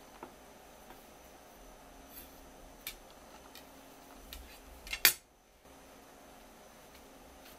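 Light clicks and taps of a kitchen knife against a wooden cutting board as a raw striped jack fillet is cut, with one sharp, loud click about five seconds in.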